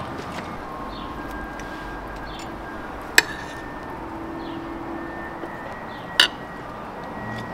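Two sharp clinks about three seconds apart, the second ringing briefly, over a steady background hiss.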